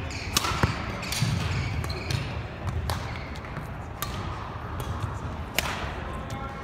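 Badminton rackets striking the shuttlecock: about five sharp cracks spread through the rally, the loudest near the end, with shoes squeaking and footfalls on the hardwood court.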